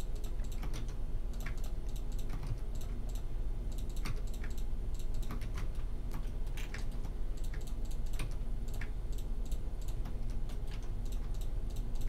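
Computer keyboard keys clicking irregularly as Blender shortcuts (F, A, Shift) are pressed, over a steady low hum.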